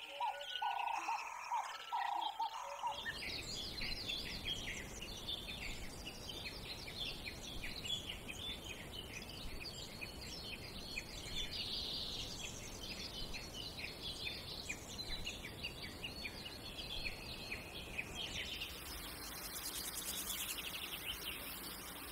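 Forest bird chorus: a bird calls in repeated low notes for the first few seconds, then many small birds chirp rapidly over a steady background hiss, and a high, fine buzzing trill joins near the end.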